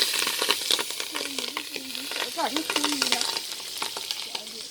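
Food sizzling and crackling in a cooking pot over a wood fire while it is stirred, with many sharp crackles. A faint wavering tone sounds in the middle.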